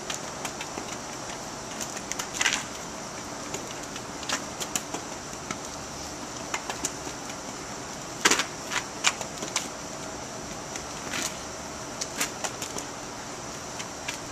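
Irregular short scuffs and taps of a dancer's shoes on a paved sidewalk over a steady outdoor hiss, the loudest scrapes about two and a half and eight seconds in.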